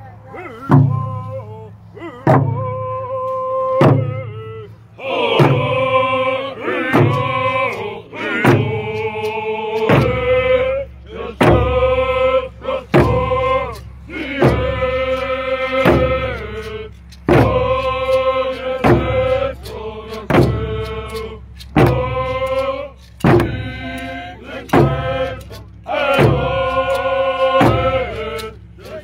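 Indigenous hand drum song: a group of voices chanting together over round hide frame drums struck in a steady, even beat. More voices join about five seconds in, and the drumming grows heavier around ten seconds.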